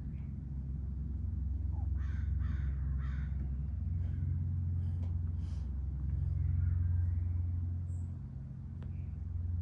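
Casablanca San Marino ceiling fan motor, whose capacitor is failing, humming steadily. About two seconds in come three short harsh calls, and a few fainter ones follow.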